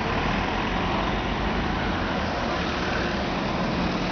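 Steady road traffic noise from cars and vans driving past on the road beside the footpath.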